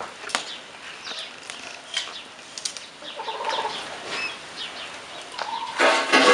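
Chickens clucking, with scattered sharp clicks and a louder burst of noise about six seconds in.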